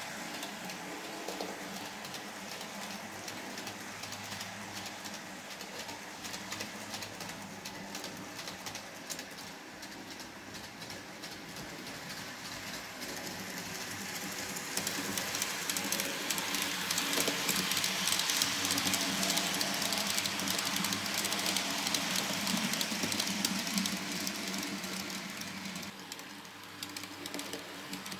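N-scale model train, an electric locomotive hauling freight wagons, running on the track: a steady rolling whir with fast, fine clicking of wheels over rail joints. It gets louder about halfway through as the train comes out of a tunnel close by, and fades again near the end.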